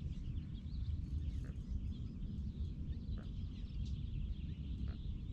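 A steady low rumble of wind on the microphone, with small birds twittering faintly, mostly in the first couple of seconds. A few faint light ticks.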